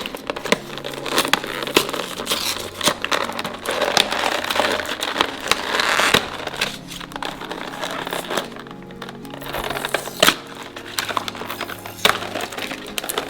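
Plastic toy packaging crinkling and crackling in the hands as a cord wrapper is pulled off a sealed bag, with irregular sharp clicks throughout.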